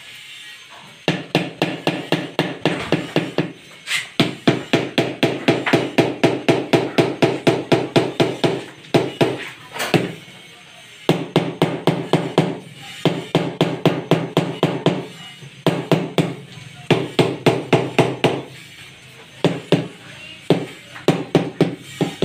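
White rubber mallet tapping speckled countertop tiles down into their mortar bed to seat and level them, in quick runs of about four blows a second broken by short pauses.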